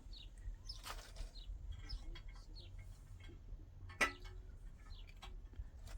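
Faint scattered chirps of small birds with light ticks and taps, and one sharper knock about four seconds in, over a low steady rumble.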